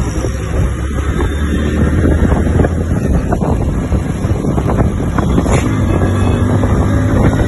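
Motorcycle engine running steadily under way, with wind buffeting the microphone.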